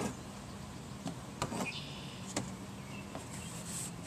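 A few light, separate clicks and knocks as fuel lines and wiring are handled on top of a plastic fuel tank, the sharpest about a second and a half in.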